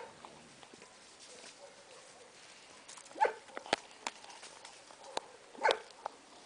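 A dog chewing and crunching a cow bone: a few sharp cracks and crunches, the loudest about three seconds in and again near the end, with quiet chewing between.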